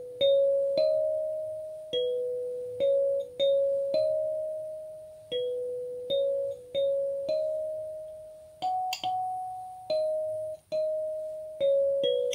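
Gecko kalimba played with the thumbs: a slow melody of single plucked metal tines, each note starting sharply and ringing as it fades before the next.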